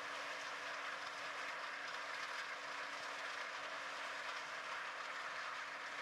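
New Holland CR9080 combine harvesting corn: a steady mechanical rattle and hiss from the corn header and threshing machinery, with a faint steady hum from the machine beneath it.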